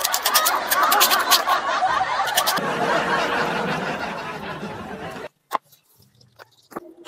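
Snickering and chuckling laughter, a comedy laugh track, cutting off suddenly about five seconds in, followed by near silence with a few faint clicks.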